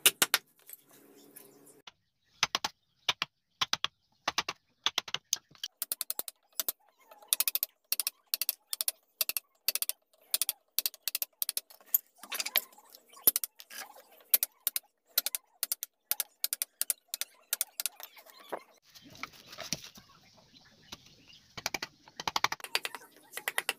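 Chisel being struck into wood with a mallet during hand carving: a long series of sharp knocks, several a second with short pauses, and a few seconds of scraping about three-quarters of the way through as the blade pares the wood.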